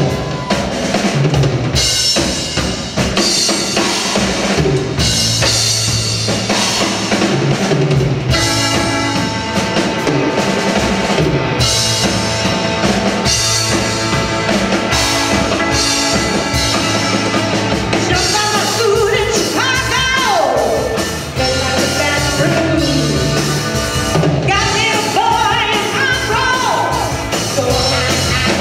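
Live rock band playing loudly: drum kit, electric guitar and bass guitar. A woman's singing voice comes in about two-thirds of the way through.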